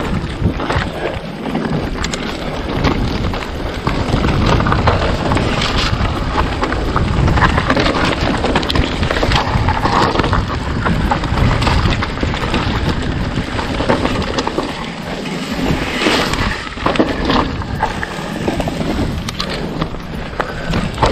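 Wind buffeting the microphone over the rumble of a bike's tyres on a dirt trail, with frequent small clicks and rattles.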